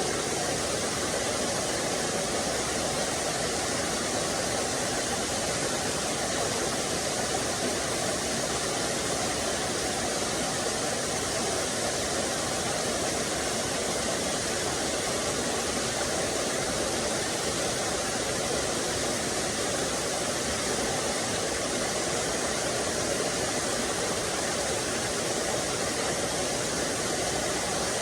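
Small waterfall splashing into a forest stream, a steady, unbroken rush of water.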